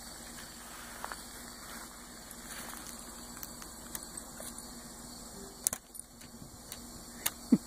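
Pet door flap clacking as a dog pushes through it. The loudest is a double clack a little before six seconds in, among a few fainter clicks and light metallic jingling of collar tags.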